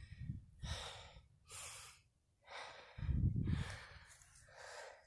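A person breathing heavily: several audible breaths, about one a second, with a low rumble about three seconds in.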